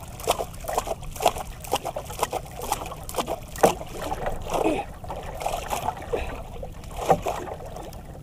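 Sea water splashing and slapping against the hull of a small outrigger fishing banka, in many short, irregular splashes.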